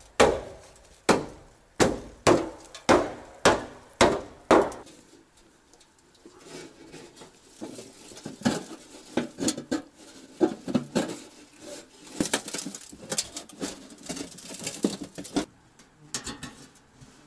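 Evenly spaced sharp strikes on wood, about two a second, for the first four or five seconds. After a short pause comes a long stretch of crinkling and rustling as a sheet of black waterproof sheeting is handled and spread out on the ground.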